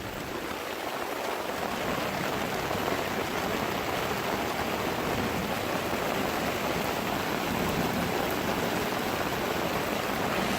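Heavy rain pouring onto a tent, heard from inside it: a steady, dense hiss of countless drops.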